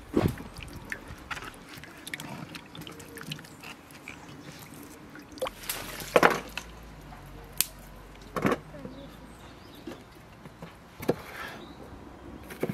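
Water poured from a jug splashing over cucumbers and a lemon held in the hand, loudest around the middle, with a few sharp, separate knocks of a knife on a wooden cutting board.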